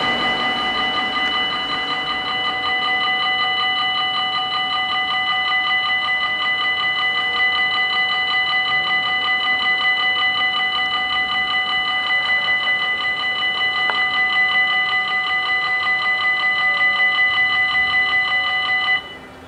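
Level-crossing warning bells ringing in a fast, steady pulse, warning of an approaching train while the barriers lower. The ringing cuts off suddenly about 19 seconds in, as the barriers come down.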